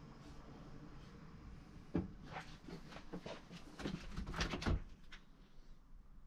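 Knocks and clicks of motorhome kitchen fittings being handled: the glass lid over the gas hob is shut with a sharp knock about two seconds in, and a run of clicks and bumps follows as the fridge door is unlatched and swung open.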